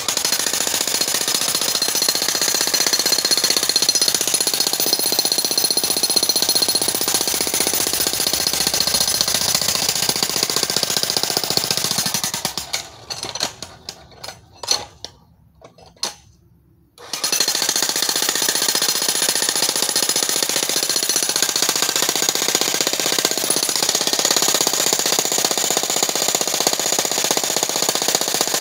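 Electric jackhammer breaking rock, hammering at a rapid, steady rate. About twelve seconds in it stutters through a few short bursts and stops for a couple of seconds, then starts again and runs steadily.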